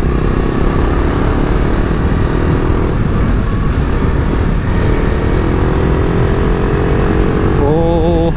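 KTM RC 390's single-cylinder engine running at road speed under heavy wind rumble on the helmet microphone. The engine note climbs slowly through the second half.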